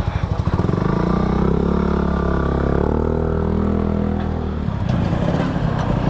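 Yamaha RX-King two-stroke single-cylinder engine pulsing, then revving up from about half a second in, holding and easing off over some four seconds, then falling back to pulsing. The bike has a broken clutch bearing, which the rider calls "lakernya jebol".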